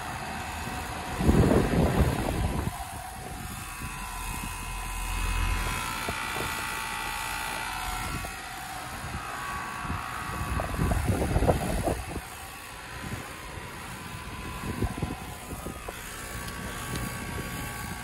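Carrier Sentry 15 two-ton heat pump outdoor unit running in cooling mode: the condenser fan and compressor hum steadily with a few high steady tones. Loud gusts of air buffet the microphone about a second in and again around ten to twelve seconds.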